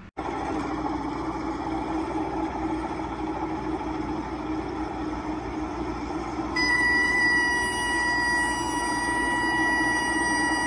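Robinson R22 helicopter cabin noise, engine and rotor running steadily. About six and a half seconds in, the low rotor RPM warning horn comes on as a steady high tone and keeps sounding: the rotor is drooping as the helicopter settles, with power required exceeding power available.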